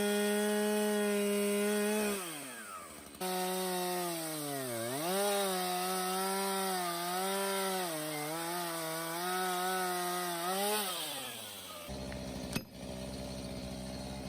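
Stihl chainsaw's two-stroke engine at high revs, dropping off about two seconds in, then revving again and cutting into wood, its pitch dipping and wavering as the chain takes load. Near the end the saw falls away to a lower, steadier sound, with one sharp click.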